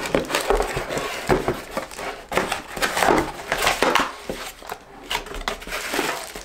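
Cardboard packaging being handled: the box's flaps and inner cardboard insert scraping, rustling and knocking as the contents are pulled out, in a run of irregular noises.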